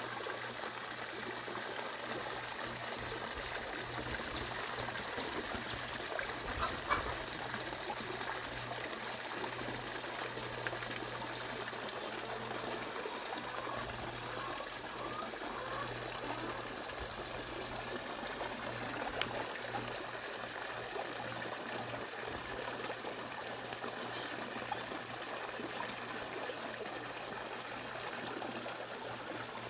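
Water trickling and running in a steady stream.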